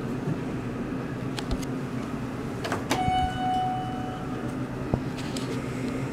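Elevator hall chime dings once about three seconds in, a single clear tone that rings and fades over about a second and a half, over a steady background hum.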